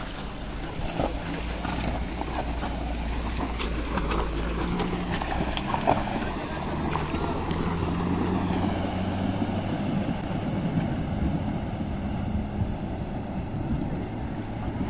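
Mahindra Thar 4x4 engine running as it wades through a fast-flowing shallow river, with water splashing around the wheels. The engine hum is steady and shifts in pitch a few times.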